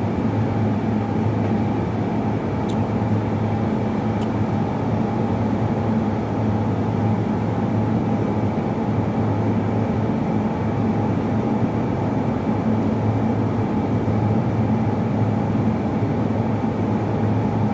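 Steady, unchanging low hum of a running motor, with two faint clicks about three and four seconds in.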